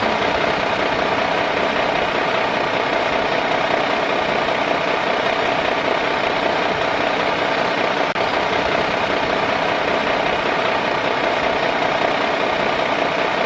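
A small machine motor running steadily at a constant speed, a continuous mechanical drone with a faint steady hum in it.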